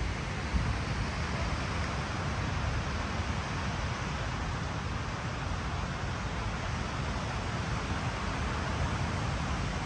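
Wind buffeting the microphone, an uneven low rumble, over a steady rushing noise outdoors.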